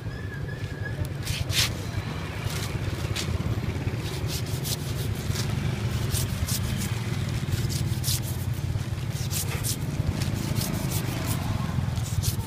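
Cleaver shaving the skin off a whole pineapple in quick, irregular scraping cuts, with a plastic bag rustling, over a steady low background rumble.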